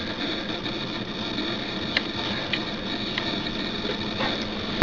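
An eMac G4 computer whirring steadily with a low hum as it boots from the Leopard install disc, with a few faint clicks in the second half.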